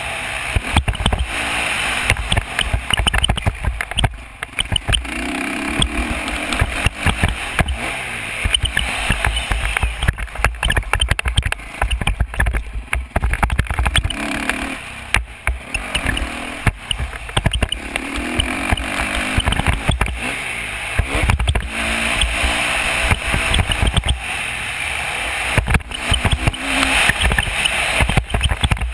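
Dirt bike engine revving up and falling back again and again while riding a motocross track, under heavy wind buffeting on a helmet-mounted microphone.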